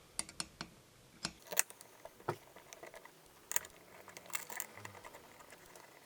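Scattered light metallic clicks and taps of small screws and a 2 mm hex key being handled and started into a pump heatsink housing, about a dozen irregular ticks with a few louder clicks.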